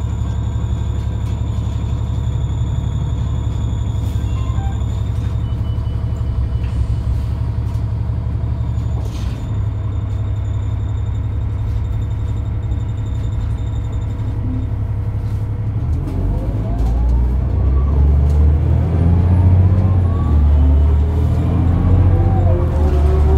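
Cummins ISL diesel engine of a 2004 New Flyer D40LF transit bus, heard from inside the cabin: idling steadily, then about sixteen seconds in it speeds up and rises in pitch as the bus pulls away and gets louder.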